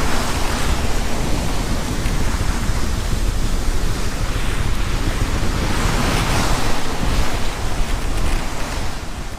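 Steady rushing of wind and waves, with wind buffeting the microphone in a heavy low rumble.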